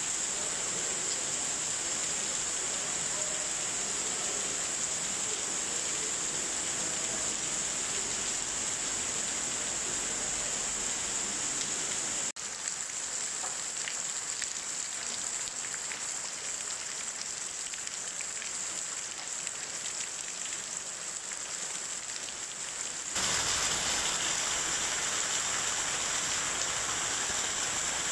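Torrential rain pouring down steadily. The sound changes abruptly twice, once near the middle and again near the end, where it gets louder.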